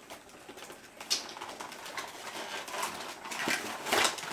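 Plastic toy packaging and small plastic toy pieces being handled: a run of rustles, scrapes and light clicks that starts about a second in and is loudest near the end.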